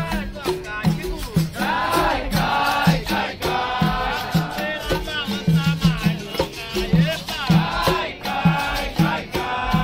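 Capoeira roda music: berimbaus with shaker rattles, a steady atabaque drumbeat and pandeiros, under group singing.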